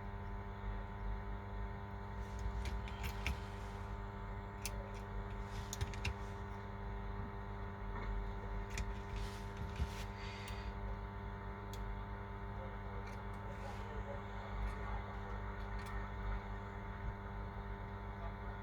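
A steady electrical hum, made of several constant tones, with scattered small clicks and taps over it.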